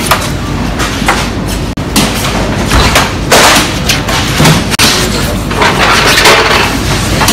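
Mechanics servicing a rally car: a loud clatter of tools and parts with many knocks and thumps, and two longer bursts of noise about three and a half and six seconds in.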